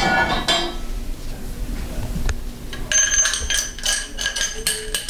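Steel fork parts clinking and ringing as a new coil spring is fitted on the damper rod of a Harley-Davidson 39 mm fork: a sharp click a little after two seconds in, then a run of clinks with a bell-like ring in the second half.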